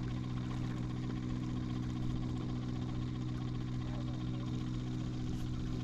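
Steady low hum at a constant pitch, like an engine or electrical equipment running without change.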